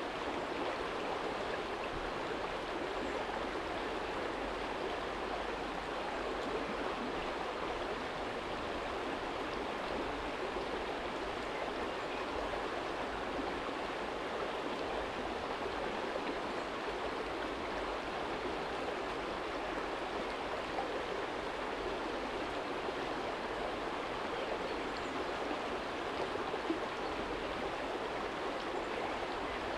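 Small shallow stream running steadily over a stony bed, a constant babbling rush of flowing water.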